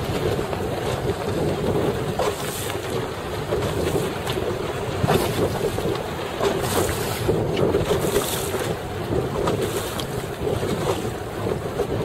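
Wind buffeting the microphone over choppy open water, with waves splashing close by several times.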